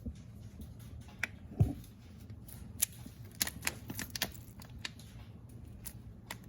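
Irregular sharp clicks and taps from hands and a tool working at a truck's A/C line fittings, with one louder low thump about a second and a half in, over a steady low hum.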